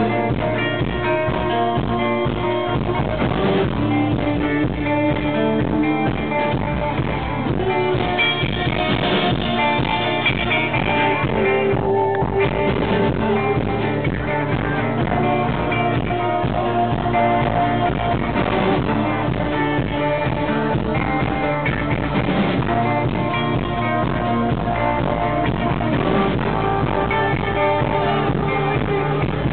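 Live band playing a song, guitar to the fore over a steady beat in the low end.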